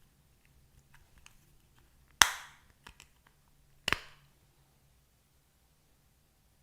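Slime slapped or popped twice, two sharp smacks about a second and a half apart, with faint sticky clicks around them.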